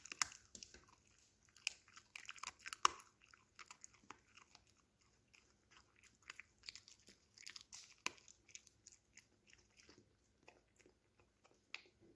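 A small dog chewing a beef stick chew: faint, irregular crunches and wet clicks, busier in the first few seconds and sparser toward the end.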